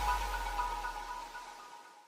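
Background music fading out, its last notes dying away to near silence.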